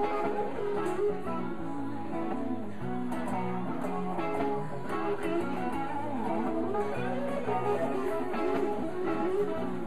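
Electric guitar played live, a steady stream of changing notes.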